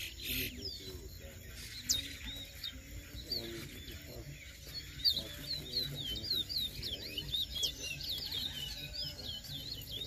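Caged finches singing against each other in a song race: quick runs of short, sweeping chirping notes, sparse at first and dense from about five seconds in.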